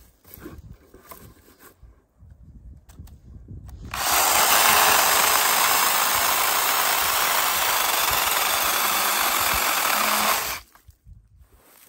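Battery-powered mini pruning chainsaw cutting through a dead log. After a few seconds of faint handling sounds, the saw starts about four seconds in, runs steadily through the wood for about six seconds, and stops suddenly.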